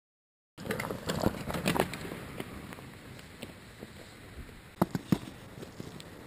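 Fat bike ridden over a snowy trail, heard from the rider's on-board camera: tyre noise on snow with knocks and rattles from the bike, busiest in the first second and a half, then two sharp clicks near the end. It begins abruptly about half a second in after a brief dead silence.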